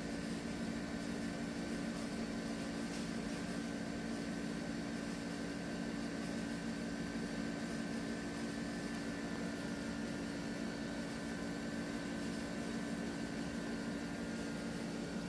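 Steady low hum with a constant hiss over it, unchanging throughout, with no distinct events.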